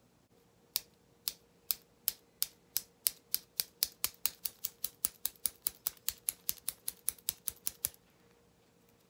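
Fingers snapping in a quick run of sharp snaps, starting at about two a second and speeding up to about four a second, then stopping suddenly.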